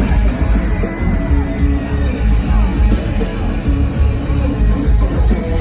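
Live nu-metal band playing loud: a distorted electric guitar riff over a heavy, pulsing bass and drums, with no vocals.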